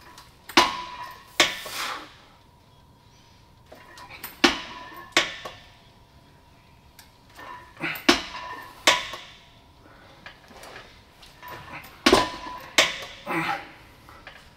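A weightlifter's forceful, sharp breaths of effort through repetitions of a hard set. They come in pairs less than a second apart, about every four seconds, four pairs in all.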